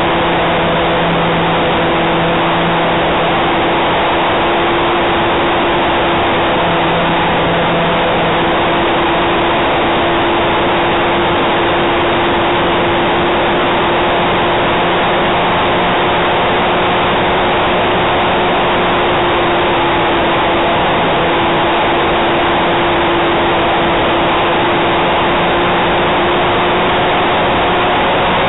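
Onboard sound of a radio-controlled model Cessna 400 Corvalis in flight: a loud, steady rush of propeller and wind noise with a faint motor hum whose pitch drifts slightly.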